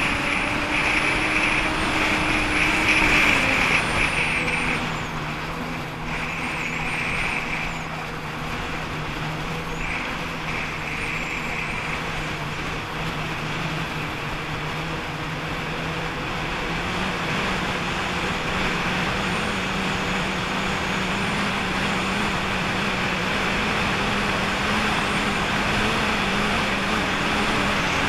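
Jet ski engine running on the water over a steady rush of water and wind. Its pitch drops about four seconds in as it throttles back, then rises a little over halfway through.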